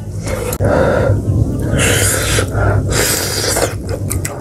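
Close-miked mouth and breath sounds of someone eating hot stew: two long, airy puffs about a second apart in the middle.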